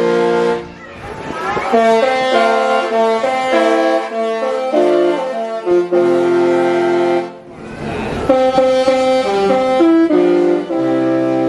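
The Disney Wish's ship horn playing a Disney tune: loud held brass-like chords of several notes that step from pitch to pitch, with two short breaks, about a second in and past the middle.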